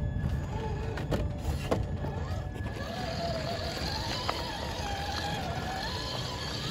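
Traxxas TRX-4 RC crawler's electric motor and gears whining, the pitch rising and falling with the throttle as it drives. A couple of sharp knocks of the truck on rock come about a second in.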